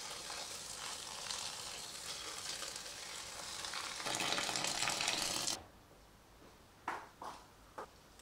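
Water poured in a thin stream onto elderflowers in a ceramic bowl: a steady splashing hiss that gets louder about four seconds in, then stops suddenly. A few short knocks follow as a ladle is pushed through the soaked flowers.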